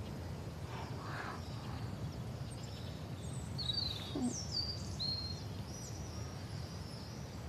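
Birds chirping: a handful of short, high chirps and whistles through the middle, over a faint steady background hum of outdoor ambience.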